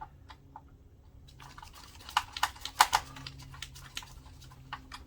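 Irregular light clicks and ticks of a hand screwdriver working small screws in a projector's plastic housing, thickest and loudest about two to three seconds in. A faint steady low hum runs underneath.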